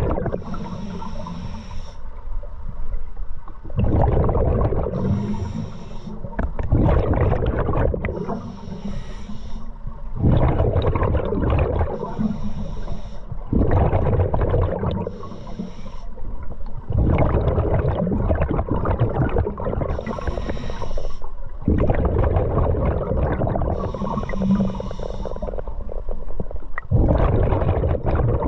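A scuba diver breathing through a regulator underwater: a short hissing inhalation, then a longer bubbling exhalation, repeating about every three to four seconds for some eight breaths.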